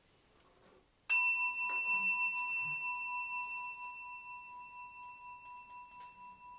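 A small Buddhist bowl bell struck once about a second in, ringing with a clear steady pitch and a higher overtone that slowly fade with a gentle waver, marking the close of the talk.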